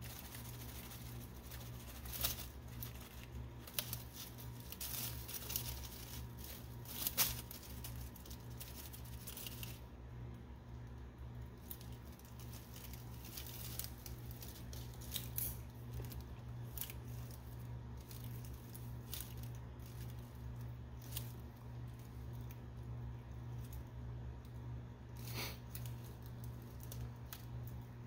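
Dry leaf litter rustling, with a few sharp clicks scattered through, the loudest about seven seconds in, over a steady low hum.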